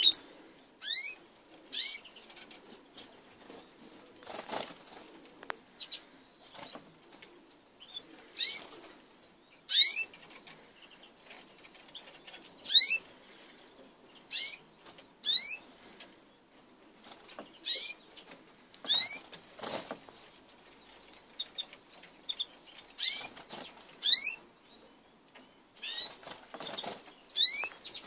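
Small caged finches giving short, sharp chirping calls every second or two, mixed with brief flurries of wing fluttering as birds flit between perches.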